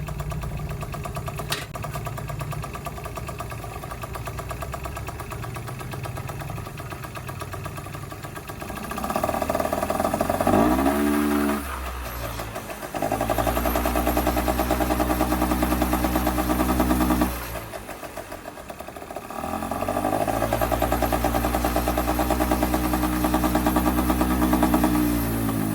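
Yamaha 3KJ Jog Poche scooter's small two-stroke engine idling, then revved up three times. Each time the pitch rises and holds steady for a few seconds before falling back to idle.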